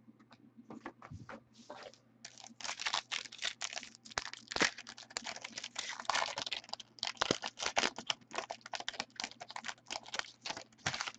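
Foil wrapper of a Valor football trading-card pack being torn open and handled: a dense run of irregular crinkling crackles, starting after a couple of seconds of faint scattered ticks.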